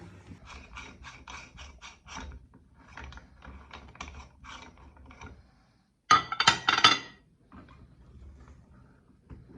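Meat grinder mechanism clicking and ratcheting in two runs of sharp clicks, about three to four a second, then a louder burst of clattering about six seconds in.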